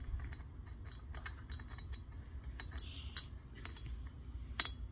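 Light metallic clicks and clinks as a steel intake valve is slid into its guide in a Honda GX160 aluminium cylinder head and touches its seat, with one sharper click near the end. A steady low hum sits underneath.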